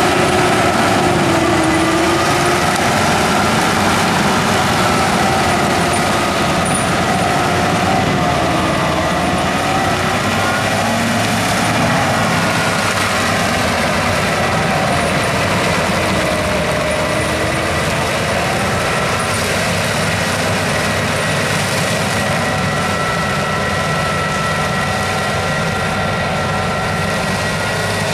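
Large tractor engine running steadily under load while driving an FAE CH-45 strip-tillage implement that churns through the soil. Its pitch wavers a little, with a thin, steady high whine running through it.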